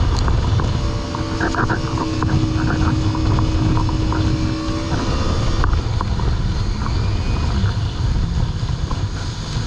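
Yamaha VX Cruiser personal watercraft running at speed, its engine droning steadily over the rush of spray and water against the hull. The engine's steady tone drops away about halfway through as the hull keeps rumbling over the chop.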